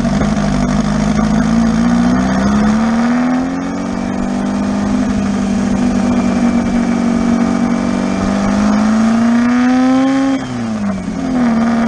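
VW beach buggy engine running under way, its pitch slowly climbing as it pulls, then dropping sharply near the end with a gear change before picking up again.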